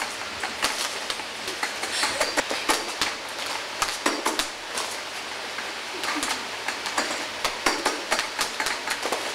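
Boxing gloves punching a free-standing reflex bag on a spring stand: a fast, irregular run of sharp hits.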